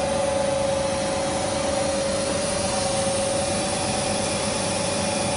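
Steady machine drone with a constant mid-pitched whine and an even hiss, unchanging throughout.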